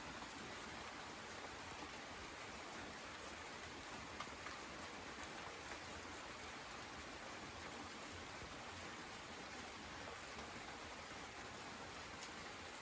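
Steady rain falling, an even hiss with a few light drop ticks scattered through it.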